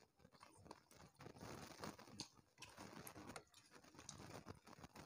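Faint eating sounds: soft, irregular chewing and small wet clicks of fingers mixing rice and fish curry on plates.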